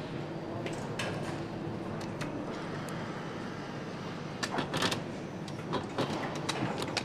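Motorcycle engine assembly line running: a steady machine hum with scattered sharp metallic clicks and clanks, and a quick cluster of them a little past the middle.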